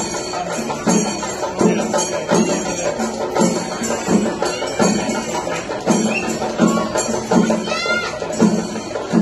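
Percussion music with a steady beat of strong drum strokes about every three-quarters of a second, with a jingling, cymbal-like layer over it. A few short rising and falling pitched glides sound near the end.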